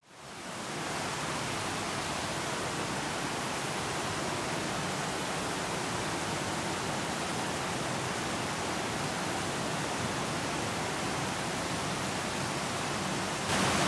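Steady rush of a fast mountain stream cascading over rocks, fading in at the start and stepping up louder just before the end.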